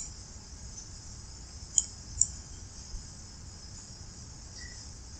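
Computer mouse clicks: one at the start, two close together a little under two seconds in, and a faint one shortly after, over a steady high-pitched hiss.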